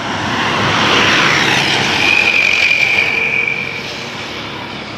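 A bus passes close by on the road. Its engine and tyre noise swells to a peak about a second in and then fades. A steady high tone is held for nearly two seconds in the middle.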